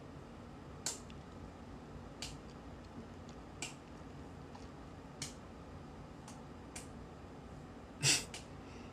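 Quiet room tone broken by faint, sharp clicks at uneven intervals, about one every second, with one louder, slightly longer noise near the end.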